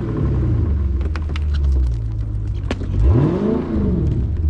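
Dodge Charger Scat Pack's 6.4-litre HEMI V8 running with a steady low rumble, revved up and let back down once about three seconds in, as the car tries to pull out of deep snow. A few light clicks come in the middle.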